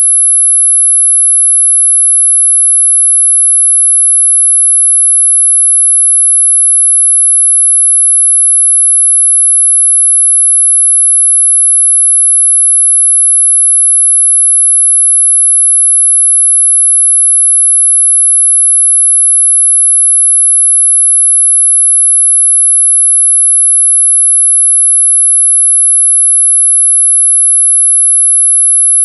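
A single steady, high-pitched pure sine tone at about 11 kHz: a synthesized tone made to mask high-pitched tinnitus ringing.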